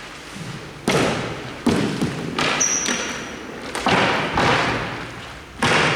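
Four loud knocks that echo in a large hall, spaced one to two seconds apart, with a brief high squeak between the second and third.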